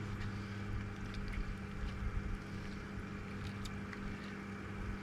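Steady low hum of a boat motor running, with a few faint clicks.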